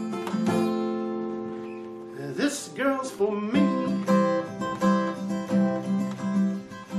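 Acoustic guitar strummed in chords. A couple of strums ring out and fade at first, then steady rhythmic strumming picks up just past halfway.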